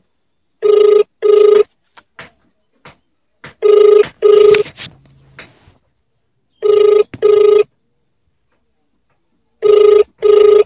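Telephone ringback tone of an outgoing call: a low tone in double rings, four pairs about three seconds apart, while the call rings at the other end without being answered.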